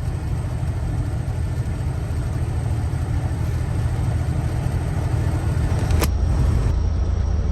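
Steady low drone of a semi truck's engine and road noise while driving, heard inside the cab, with a single sharp click about six seconds in.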